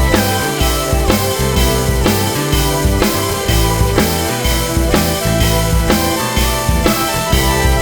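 Background music with a steady rock drum beat and pitched instruments.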